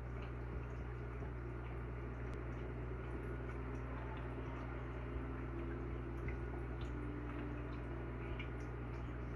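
A steady low hum with faint small drips and ticks of water over it, typical of a running fish tank.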